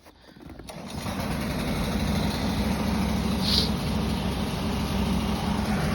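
A vehicle engine running steadily, coming up out of near-quiet over the first second.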